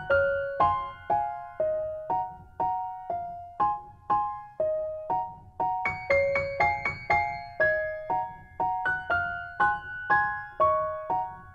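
Background music: a gentle piano melody of evenly spaced struck notes, each fading after it sounds, with fuller chords from about halfway through.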